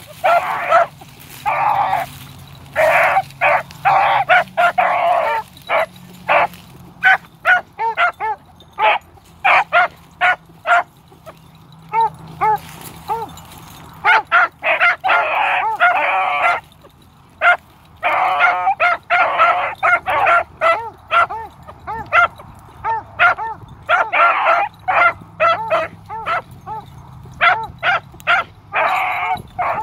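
Three young beagle pups baying as they run a scent track: a run of short, rapid barks broken by longer, drawn-out cries, coming in clusters with brief lulls.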